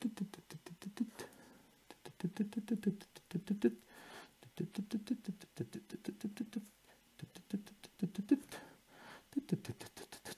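A pen writing and drawing on a sheet of paper: a series of short scratching strokes in quick bursts, with brief pauses between them.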